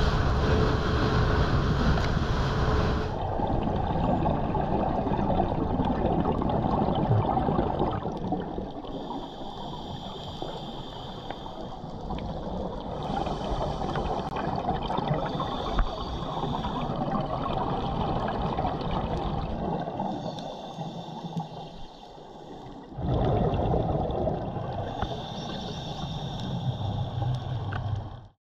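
A boat running fast over open sea for about three seconds, then underwater sound of scuba divers' exhaled bubbles, coming in bursts every few seconds.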